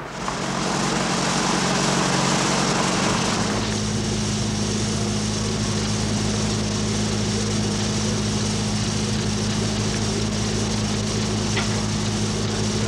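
Steady machine hum: a low drone with a hiss over it, shifting slightly in pitch about three and a half seconds in.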